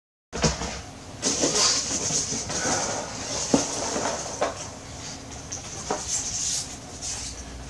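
Rustling and handling of cardboard-backed, plastic-bubble action-figure cards, with a few sharp taps and knocks as a card is pulled from the box.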